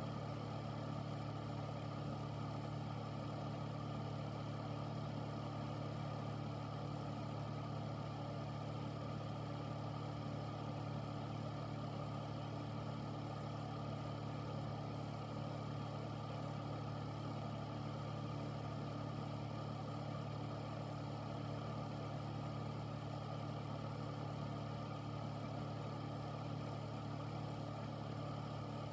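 Air filter's fan running steadily: a constant low hum with a few steady tones over an even airy hiss.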